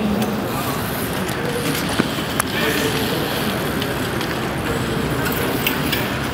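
Street noise: a steady wash of traffic-like noise with indistinct voices, broken by a couple of sharp clicks about two seconds in.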